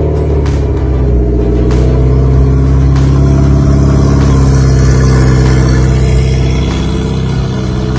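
Engine of a homemade Bugatti Chiron replica running steadily with a low, even hum as the car moves off, its pitch lifting slightly about a second in.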